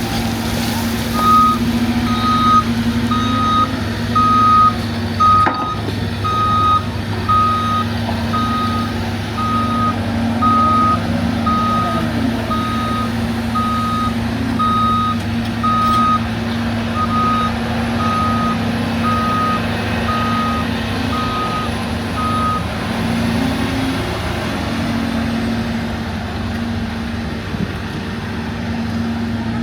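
Diesel engine of a LiuGong 942F crawler excavator running steadily under a travel alarm that beeps about once a second. The beeping stops about 22 seconds in while the engine runs on.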